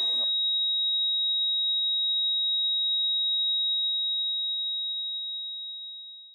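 A steady, high-pitched electronic tone held for about six seconds, fading away near the end: a heart-monitor flatline sound effect, following a single short beep.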